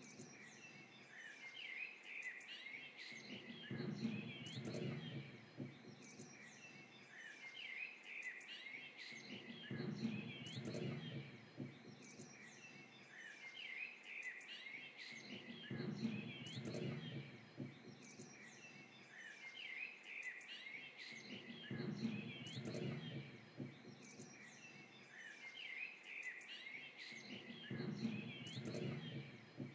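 Forest birds chirping and twittering throughout. A low rushing sound swells and fades about every six seconds.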